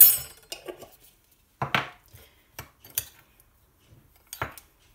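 A metal spoon clinking and knocking against a ceramic bowl in several separate strikes while stirring a dry mix of fine semolina and cornstarch.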